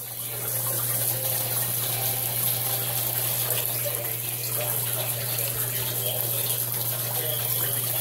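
Water swirling in a clear vortex fountain cylinder and draining through its central hole, splashing and gurgling into the barrel below. A steady low hum runs underneath.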